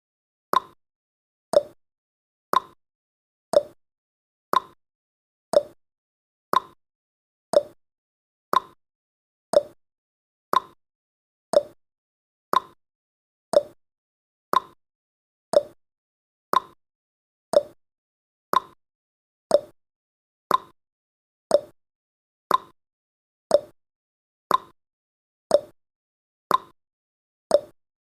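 Countdown timer's clock-tick sound effect: one short, sharp tick each second, steady throughout, some ticks a little higher in pitch than others, like a tick-tock.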